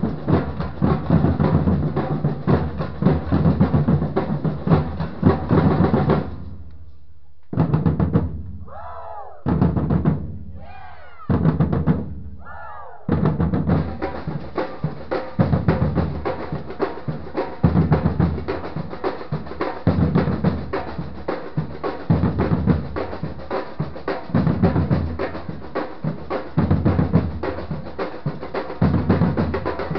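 Samba batucada drum group playing, with large surdo bass drums and smaller repinique-style drums in a dense groove. About six seconds in the band stops on cue and plays three short unison hits, each ringing on and falling in pitch. The full groove comes back in about thirteen seconds in.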